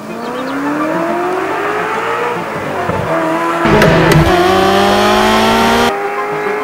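Ferrari 348 ts's 3.4-litre V8 accelerating hard, its pitch climbing steadily, breaking off at a gear change about three seconds in, then climbing again in the next gear. The sound is louder for about two seconds after the shift and cuts off suddenly.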